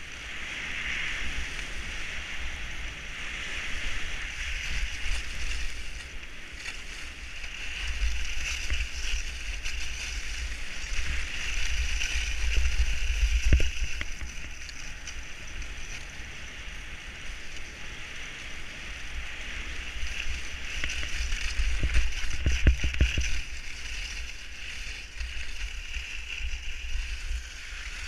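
Skis sliding and carving on groomed snow: a scraping hiss that swells and fades with each turn. Under it, wind buffets the GoPro's microphone as a low rumble, strongest about halfway through and again near the three-quarter mark, with a few short knocks at those peaks.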